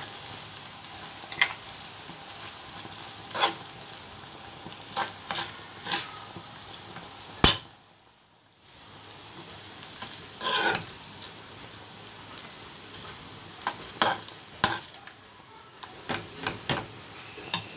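Metal spoon stirring thick white sauce and melting shredded cheese in a frying pan, clicking and scraping against the pan at irregular moments over a steady sizzle of the sauce cooking. The sound cuts out for about a second midway.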